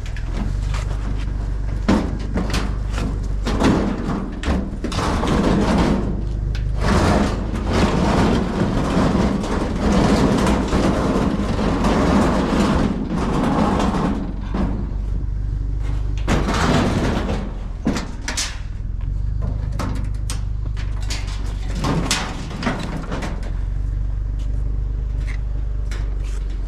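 Scrap metal being handled and loaded into a truck: repeated knocks, bangs and scraping, busiest in the first two-thirds, over a steady low engine hum.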